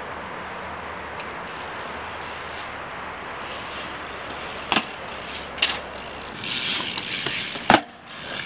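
A BMX bike's rear hub ticking steadily as the wheel freewheels, with a few sharp clicks and a loud knock in the second half.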